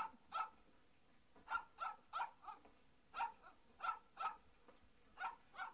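A dog barking faintly, about a dozen short barks, mostly in quick pairs with pauses between.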